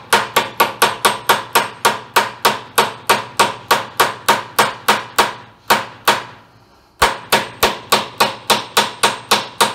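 Small hammer tapping a new U-joint bearing cup down into a Jeep drive shaft yoke: steady light blows about four a second, with a pause of about a second past the middle. The cup is being started in far enough that the needle bearings can't fall out.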